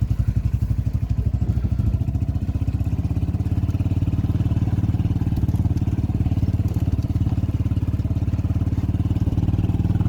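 Small engine running steadily with a fast, even putter, a moment after being started, slightly louder in the first couple of seconds before settling.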